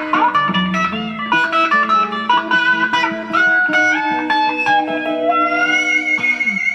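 Electric guitar lead: quick runs of single notes with string bends, ending on a long held high note with vibrato.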